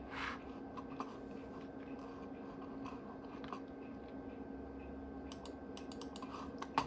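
Faint, scattered clicks of a computer mouse button as the pointer is worked around the Finder, a small run of them near the end with the loudest at the very end, over a steady low hum.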